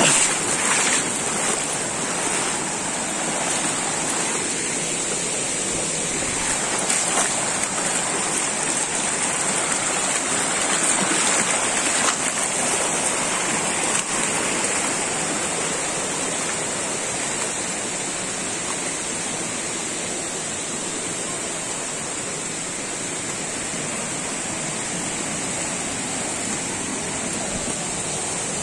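A shallow rocky stream rushing and splashing over small cascades: a steady, even wash of water, with a steady high hiss above it.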